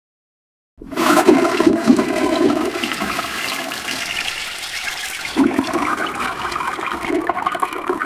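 Toilet flush sound effect generated by Stable Audio: a rush of flushing water that starts about a second in, then surges again a little after halfway.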